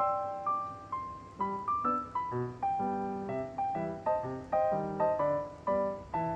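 Background music: a gentle piano tune with a melody over bass notes, each note struck clearly and fading.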